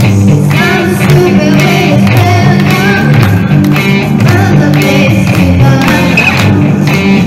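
Live rock song: a vocalist singing into a microphone over an electric guitar played through an amplifier, with sustained low notes running underneath.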